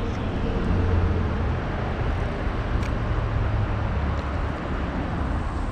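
Steady highway traffic noise with a low rumble.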